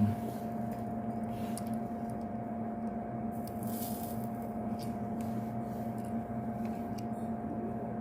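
Steady electrical hum with faint small clicks of wires and tools being handled during soldering work, and a short hiss about four seconds in.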